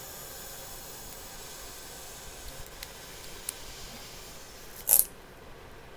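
Steady background hiss with a few faint clicks, then a brief rush of noise about five seconds in, after which the hiss drops away.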